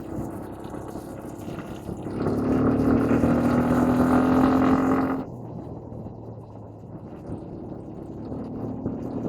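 ATV (quad bike) engine running while riding. It gets louder, with a steady pitch, from about two seconds in, then drops back suddenly about five seconds in.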